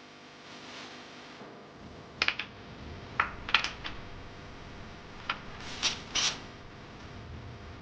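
Hand work on small metal parts: a series of sharp clicks and clinks, about seven, some in quick pairs, starting about two seconds in.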